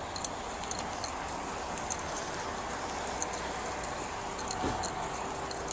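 Light, irregular metallic clinking and jingling from gear on a walking police officer's duty belt, over steady street background noise. A faint steady hum joins about four seconds in.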